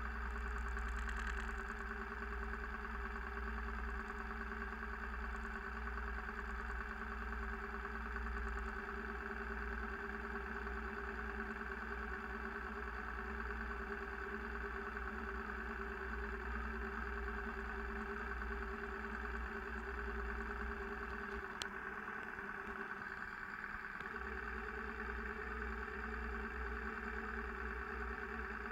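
Vehicle engine running steadily while driving on a snowy gravel road, with a constant low rumble underneath.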